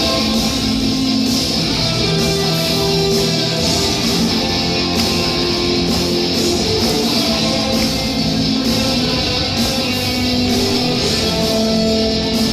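Rock band playing live: an instrumental passage led by guitar, with no singing, at a steady loud level.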